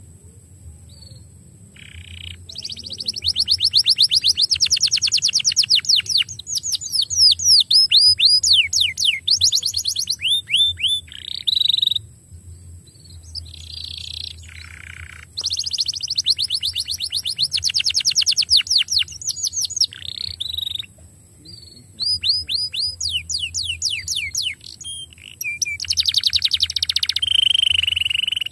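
Domestic canary singing: long phrases of fast trills made of rapidly repeated falling chirps, broken by short pauses about every few seconds.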